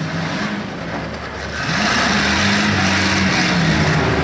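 Demolition derby cars' engines running together, one revving up about two seconds in so the sound rises in pitch and gets louder, then holding at the higher speed.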